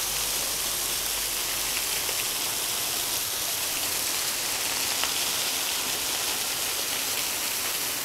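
Cucumber Falls' thin curtain of water falling and splashing onto wet rock, heard from right behind the falls: a steady, even hiss of water.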